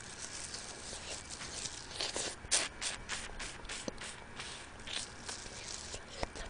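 Close-miked eating of a steamed blue crab, biting and sucking on the shell: a run of small crunchy cracks and wet clicks, busiest from about two to three and a half seconds in.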